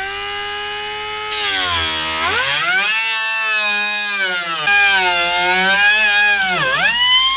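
Angle grinder with a cutting disc cutting into a fiberglass bumper: a loud whine whose pitch sags as the disc bites into the fiberglass and recovers, twice.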